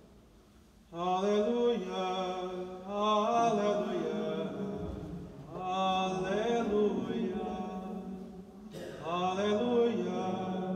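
Unaccompanied Gregorian chant: a single melodic line sung by male voice, starting about a second in and moving in long melismatic phrases with brief breaks for breath.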